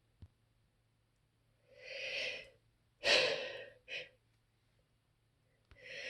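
A person's gasping breaths in the middle of a sneezing fit: a drawn-in breath about two seconds in, a sharper outward huff a second later and a short puff after it, then another breath drawn in near the end as the next sneeze builds.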